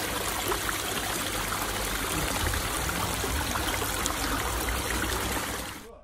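Water trickling steadily over the stone ledge of a garden pond waterfall; it cuts off suddenly near the end.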